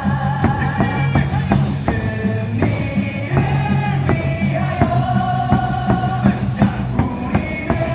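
Amplified baseball cheer music with a steady beat, with voices singing and shouting along.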